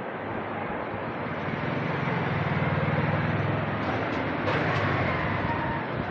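Steady background noise with a low engine-like hum that swells for a few seconds in the middle, and a few faint clicks near the end.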